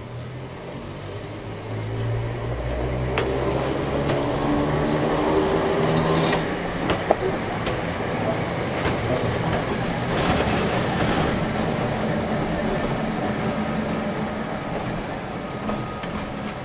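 Vintage electric train, the railcar Deha 101 coupled to the locomotive Deki 3021, running slowly past on yard track: a motor hum rises in pitch as it picks up speed over the first several seconds, followed by a steady rumble with irregular clicks and clacks from the wheels on the rails.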